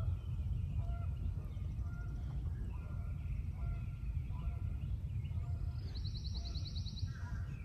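Early-morning lakeside birdsong: short distant calls scattered throughout, and a quick high trill about six seconds in, over a steady low rumble.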